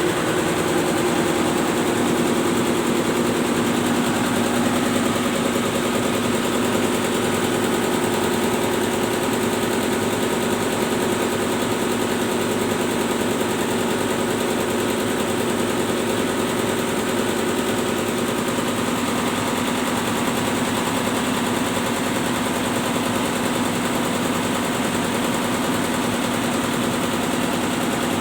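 Tugboat's two main diesel engines running steadily at constant speed, an even drone with several held tones that does not change.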